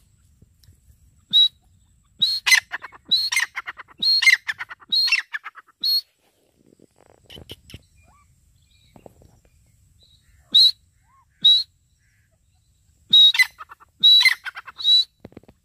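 Grey francolin calling: a run of short, sharp, ringing notes in quick succession, a pause of several seconds, two single notes, then another quick run near the end.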